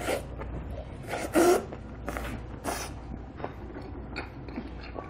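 Loud slurping as a whole piece of long-arm octopus (nakji) from a bowl of galbitang is sucked into the mouth, about four noisy slurps in the first three seconds. Soft chewing clicks follow.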